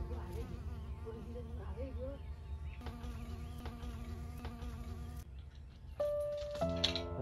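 Honeybees buzzing around flowers, a steady hum with wavering pitch. Music comes in near the end.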